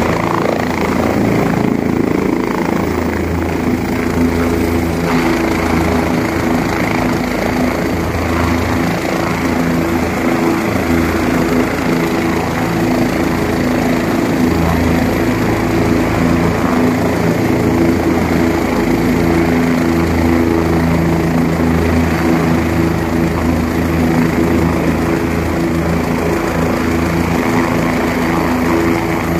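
Helicopter setting down on a helipad and then running on the ground with its rotor turning: a loud, steady engine-and-rotor drone with several low tones.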